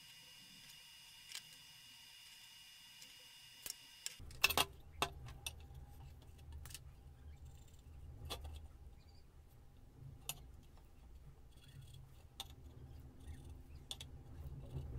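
Light metallic clicks and clinks from handling a small steel wheel rim and a steel rod being pushed through its hub bearing, sharpest about four to five seconds in. A low steady rumble runs underneath from about four seconds on.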